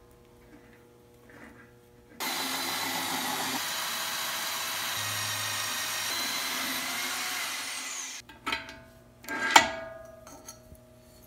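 Hole saw on a tubing notcher cutting through a metal tube: a steady grinding whir of about six seconds that starts and stops abruptly. A few metal clanks follow as the tube and vise are handled, the loudest near the end.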